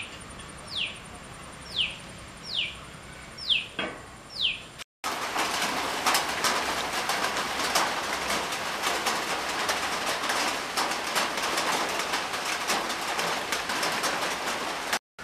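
A bird calls six times, each call a short falling whistle, a little under a second apart, over a faint steady high tone. After a sudden cut, a dense, steady crackling hiss fills the rest.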